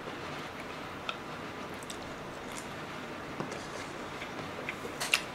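Close-miked chewing of a piece of tamago (egg) sushi: soft wet mouth sounds with scattered small clicks, and a sharp click about five seconds in.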